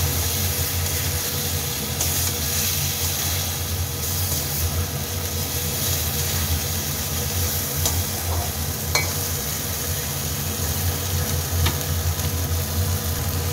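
Pointed gourds sizzling in hot oily masala in a metal kadai while a metal spatula stirs them, with a few sharp taps of the spatula against the pan. A steady low hum runs underneath.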